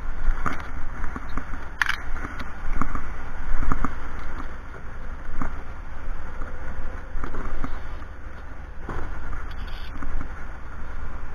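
Wind buffeting the microphone, a steady low rumble, with light clicks and knocks scattered through it, about a dozen in all, the sharpest about two seconds in.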